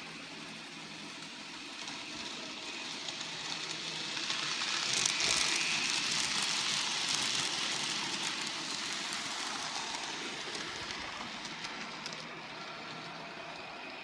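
N gauge model train running past close by, its wheels rattling and clicking on the track. The sound swells to a peak about five seconds in and fades away over the next several seconds as the train passes.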